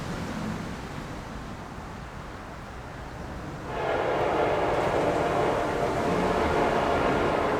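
Train rumbling as it approaches, then about three and a half seconds in an Amtrak locomotive's air horn starts sounding a loud, steady chord of several tones.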